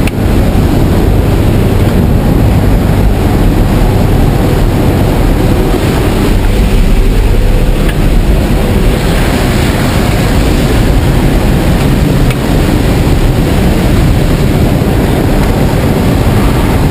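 Loud, steady drone of a skydiving jump plane's engine and propeller, heard from inside the cabin.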